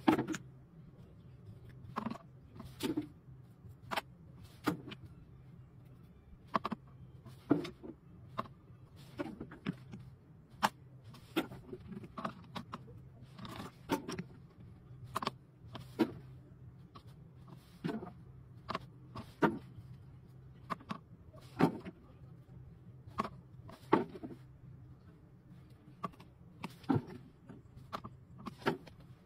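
Raw amber lumps knocking against each other, the table and a digital scale as they are picked up and set down: irregular sharp knocks, about one a second, over a low steady hum.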